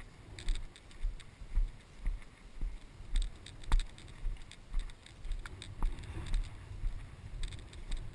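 Footsteps of a person walking steadily through knee-high wet pasture grass: a regular thud about twice a second, with some rustling of the grass.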